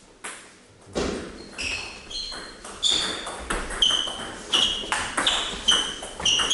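Table tennis ball striking rackets and the table in a fast doubles rally. From about a second in there is a quick run of sharp clicks, two to three a second, each with a short high ping.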